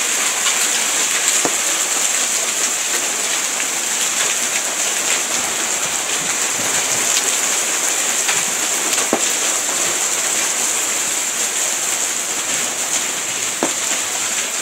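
Hailstorm with heavy rain pelting the street: a steady, loud hiss broken by scattered sharp clicks of hailstones striking.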